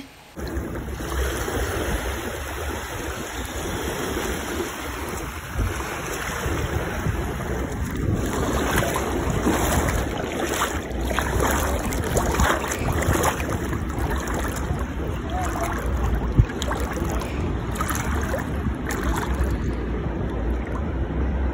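Ocean surf washing onto a beach, a steady rush of water, with wind buffeting the microphone in a low rumble.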